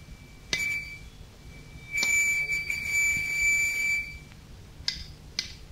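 A high-pitched electronic beeping tone: a short beep about half a second in, then one long steady beep of about two seconds. Near the end come two sharp clicks about half a second apart, at an even pace.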